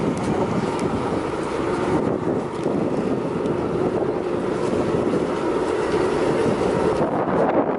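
Steady running noise of a moving vehicle: a continuous loud rumble, with the hiss thinning out near the end.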